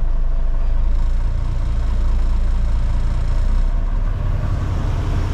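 Diesel tractor-truck engine running, heard inside the cab as the truck pulls forward. The engine note shifts to a different pitch about three and a half seconds in.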